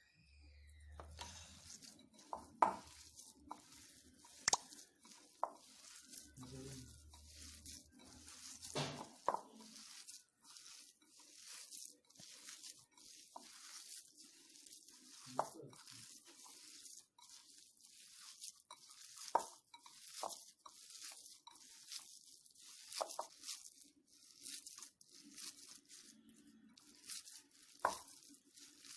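Hands kneading a wet, sticky dough of mashed banana and grated coconut: a continuous run of soft, irregular squelches and small crackles.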